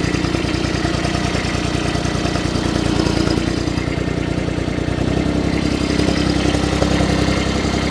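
The diesel engine of a Baumalight TRL 630D compact track loader running steadily at idle, its note shifting slightly about five seconds in.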